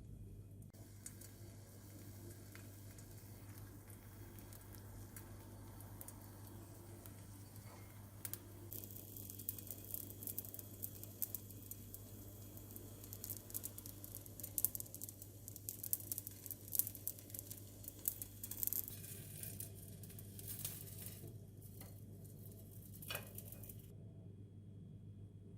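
Food sizzling and crackling in a frying pan, starting about eight seconds in and dying away shortly before the end, over a steady low hum.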